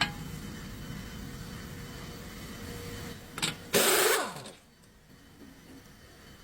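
Car engine running steadily, then a short rush about three and a half seconds in and a loud burst around four seconds in whose pitch falls away, after which the sound drops much quieter.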